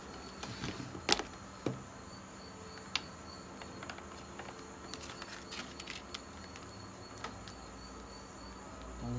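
Crickets chirring steadily, a thin high tone, with a few sharp clicks over it, the loudest about a second in.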